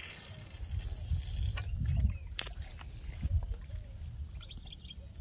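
Wind rumbling on the microphone beside open water, with scattered faint clicks. Near the end come a few short bird chirps that fall in pitch.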